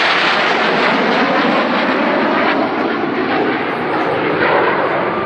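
Loud, steady rushing jet noise from F-16 fighters and their Pratt & Whitney F100 turbofan engines as they fly past overhead, easing slightly about four seconds in.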